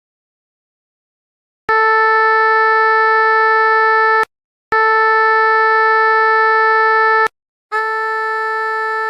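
Three steady synthesized tones, each built from stacked sine waves at a single pitch, lasting about two and a half seconds each, starting and cutting off abruptly. The first comes in about two seconds in after silence, and the third is a little quieter than the first two.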